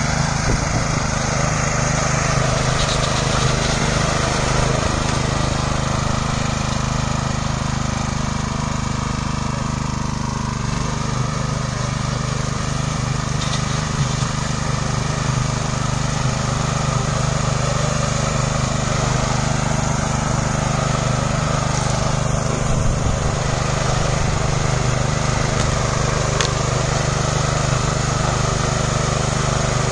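VST Maestro power weeder's engine running steadily while its mounted sprayer attachment mists the crop rows.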